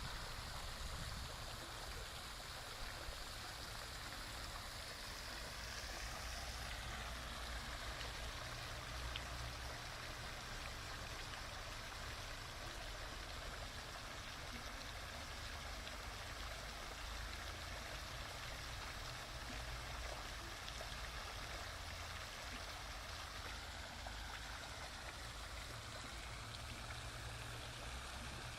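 Steady rushing of flowing water, an even hiss that does not let up, with a low rumble underneath.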